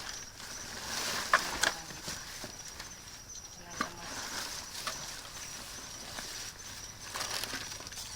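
Rummaging through discarded bags and goods in a dumpster: plastic rustling with a few sharp knocks of items being moved, over a faint steady high-pitched whine.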